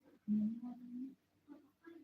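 A person's voice: one drawn-out low vocal sound of just under a second, followed by two short fainter ones.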